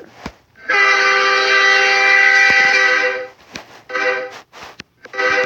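Train-horn sound effect from an air-horn app: one long, steady, loud blast of several notes at once lasting about two and a half seconds, followed by a few short blasts.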